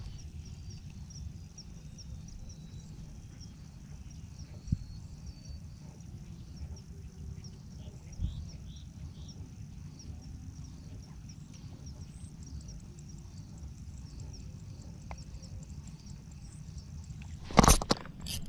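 Wind rumbling on the microphone with faint high chirping in the background and a couple of soft knocks. Near the end, loud rustling as a fabric sleeve brushes over the microphone.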